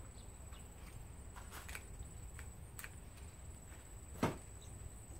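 Light clicks and taps of metal being handled as gloved hands work at a copper-wound alternator rotor clamped in a bench vise, with one sharper knock about four seconds in.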